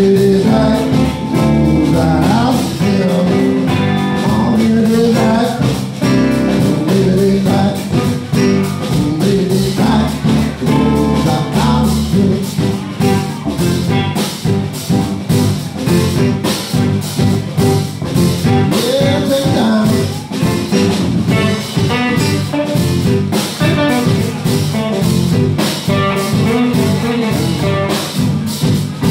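Live blues-rock band playing: keyboard, electric guitar and drum kit, with a man singing at times. The heavy low end drops away about twelve seconds in.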